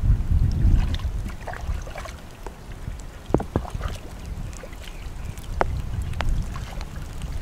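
Hands splashing and groping in shallow muddy water, with a few sharp little splashes, over wind rumbling on the microphone that is strongest in the first second.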